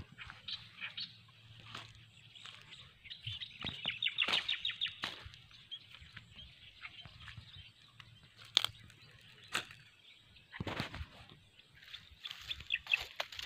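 Birds chirping, with a fast trill of short repeated high notes about three to five seconds in and again near the end. A few sharp clicks sound in between.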